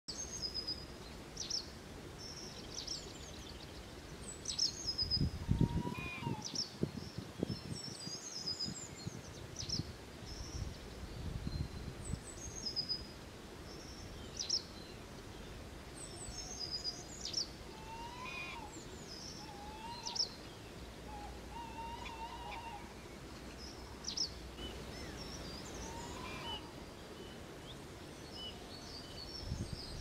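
Tawny owls calling: short, faint wavering hoots repeated at intervals, with a second tawny owl further off, over frequent high chirps and trills of small songbirds. A few low rumbles come in the first dozen seconds.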